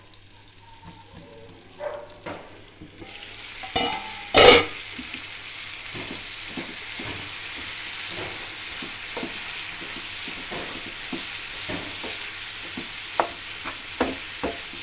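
Brinjal pieces frying in oil in a nonstick kadai. The pan is quiet under its steel lid at first; about four seconds in there is a loud metal clank as the lid comes off, then a steady sizzle with a wooden spatula scraping and tapping the pan as the pieces are stirred.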